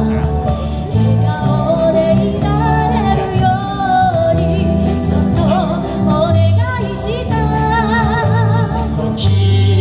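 Live amplified pop song: a vocal group sings the melody over a band with bass and drums. A long held note wavers near the end.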